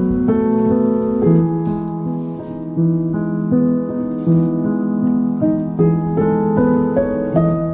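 Background piano music: a melody of held notes changing about every half second.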